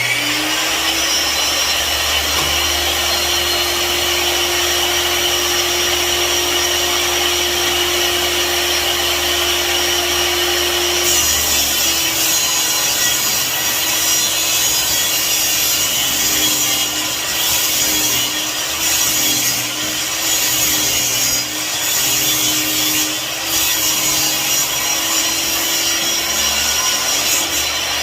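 Electric power saw cutting wood, its motor running continuously. About eleven seconds in, the tone changes and wavers under the load of the cut.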